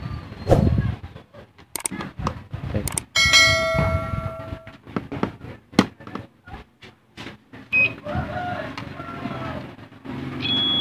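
Clicks and knocks of small tools and parts being handled, with one metallic strike about three seconds in that rings on for about a second and a half. Two brief high tones sound later, near the end.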